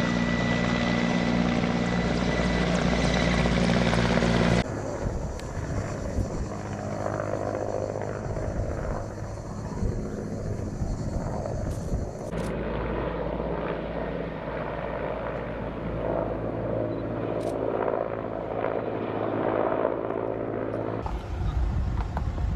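Helicopter engine and rotor noise, a steady drone that changes suddenly three times, about four and a half seconds in, about twelve seconds in and near the end.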